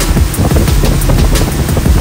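Motorboat under way: a steady engine drone mixed with wind buffeting the microphone and water rushing along the hull.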